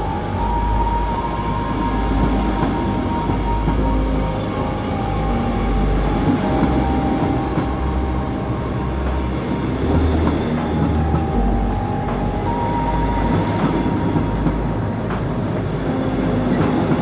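Red DB Regio double-deck coaches rolling past close by, with a steady rumble of wheels on rail. A sharp clack comes about every three to four seconds as each coach's wheels cross a rail joint, over a faint steady whine.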